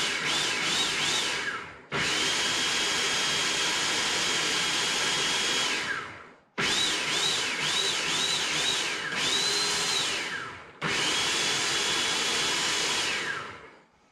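Electric food processor motor pulsed in quick bursts, about two a second, each a rising whine, then run steadily for about four seconds and spun down. More pulses and a short burst follow, then a last steady run of under three seconds that winds down near the end, blending a thick cilantro sauce.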